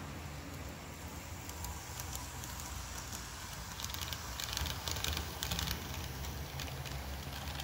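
HO scale model freight train, a CP F7A diesel with boxcars and flatcars, running past on the track: a steady low hum with a run of rapid clicking from the wheels on the rails, loudest from about four to six seconds in as the locomotive and cars go by.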